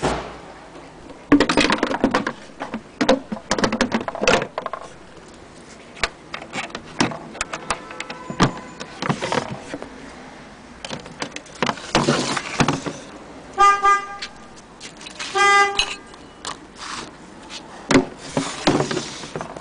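Irregular knocks, clicks and clatter of a wooden sewing-machine case being handled, with two short pitched horn toots about a second and a half apart in the middle.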